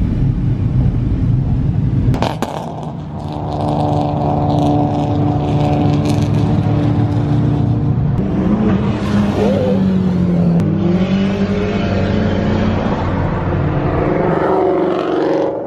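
Loud car engines and exhausts running hard at high revs as cars pass by. About two seconds in there is a sharp click, then an engine note holds steady for several seconds before it slides down and settles again.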